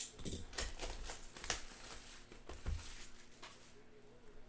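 Plastic wrapping on 2014-15 Donruss basketball card packs crinkling and tearing as it is ripped open, in a run of short rustles and crackles.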